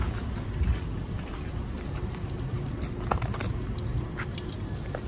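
City street noise: a steady low rumble of road traffic, with scattered light clicks and taps.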